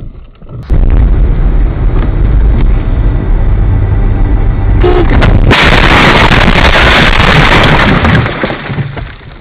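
Overloaded dashcam microphone with a loud, rumbling road and engine noise of a car at speed, then, about five and a half seconds in, a head-on car collision: a harsh, loud crash noise that lasts a couple of seconds before fading.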